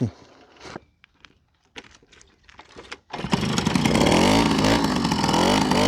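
Old moped's two-stroke engine catching about three seconds in after a few faint clicks, then running loudly with its pitch rising and falling as the throttle is worked.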